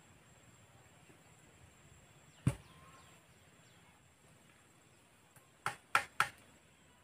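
Blade chops striking an upright wooden post: one sharp chop about two and a half seconds in, then three quick chops near the end.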